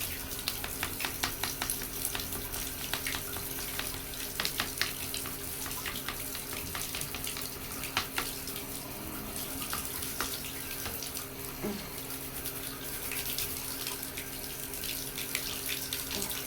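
Water running into a bathtub, with a rapid series of short scratchy clicks from a toothbrush scrubbing between plastic box fan blades.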